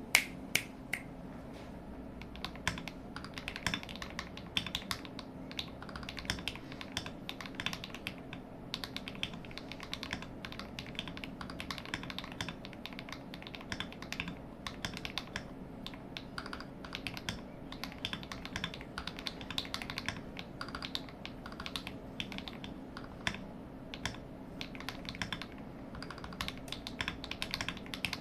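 Typing on a modded CIY Tester68 mechanical keyboard: a steady run of irregular key clacks, several a second, over a faint steady low hum.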